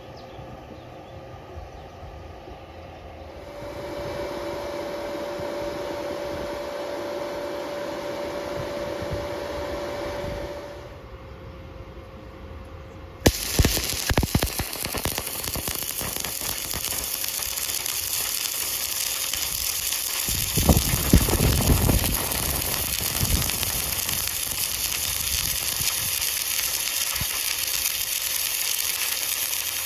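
Stick (arc) welding: the arc strikes suddenly and then crackles and sizzles steadily as the bead is run. Before it, a steady hum with a held tone is heard for several seconds.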